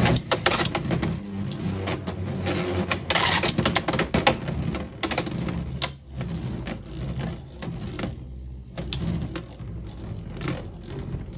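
Two Marvel Iron Man and Thanos Beyblade X tops spinning on a plastic stadium floor. A steady whir runs throughout, with rapid clicking and clacking as they strike each other and the stadium edge, busiest in the first half and sparser later.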